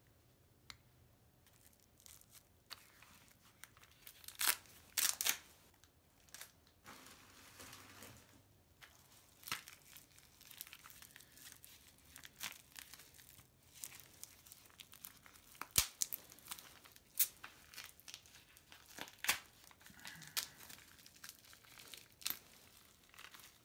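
Plastic wrapping crinkling and tearing in short, scattered bursts as wrapped coins are unwrapped by hand, with occasional sharp clicks, the sharpest about sixteen seconds in.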